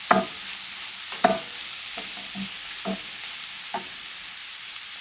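Mushroom, prosciutto, salami and asparagus mixture sizzling quietly in a frying pan with the heat just turned off, with about six short knocks of a utensil against the pan, the loudest right at the start and about a second in.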